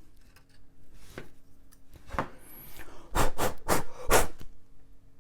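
Brisk rubbing strokes against the connector port of an Amiga 500 motherboard as its dusty port is cleaned, a few soft ones and then three louder ones in the second half.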